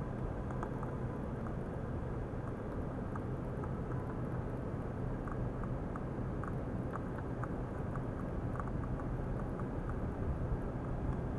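Running water bubbling and splashing steadily, with many small ticks and pops scattered through it.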